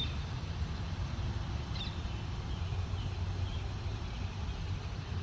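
Steady low outdoor rumble with a few faint, short bird chirps, once near the start and again about two seconds in.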